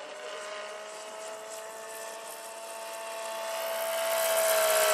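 Electric-powered BO-105 scale model helicopter flying: a steady high whine from the electric motor and drive over the rotor noise. It grows louder over the last two seconds as the model comes closer, and its pitch drops slightly near the end as it passes.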